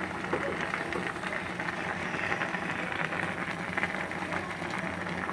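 Pot of tambakol fish simmering in vinegar, a steady soft bubbling crackle, the paksiw stage before coconut milk goes in, with a low steady hum underneath.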